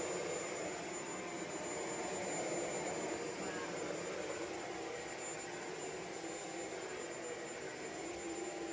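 Shark Ultralight Pet corded stick vacuum running steadily, a rush of air with a high, steady motor whine over it.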